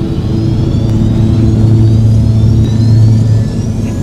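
Small private plane's engines heard from inside the cabin during the takeoff run and lift-off: a loud, steady low drone, with a high whine rising in pitch.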